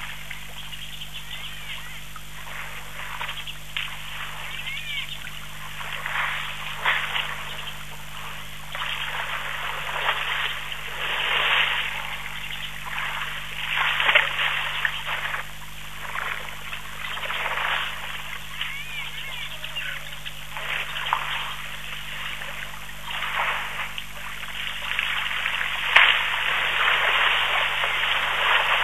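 Water splashing and trickling as elephant bulls stand, drink and move in a shallow waterhole, in irregular swells a second or so long, over a steady low hum.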